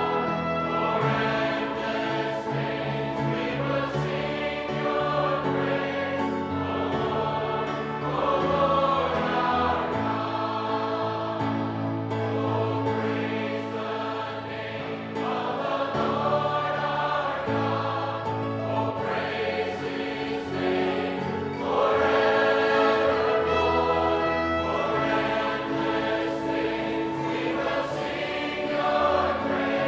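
Church choir and congregation singing a worship anthem, with instrumental accompaniment holding sustained chords over a moving bass line.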